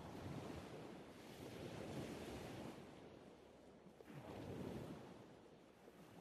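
Faint ocean surf: waves washing in, swelling twice.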